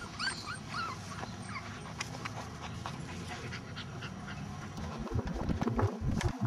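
Five-week-old kelpie puppy whimpering, a few short high squeaks in the first second. From about five seconds in there are low rumbling buffets on the microphone.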